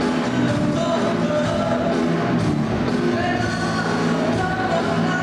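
Live rock band playing: electric guitar and a singing voice over the band, loud and continuous.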